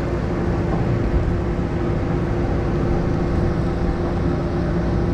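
A party boat's engine running steadily, a constant low drone with a steady hum, over a wash of wind and water noise.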